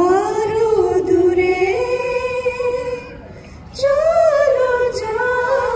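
A woman singing into a microphone: two long melodic phrases, with a short break about three seconds in.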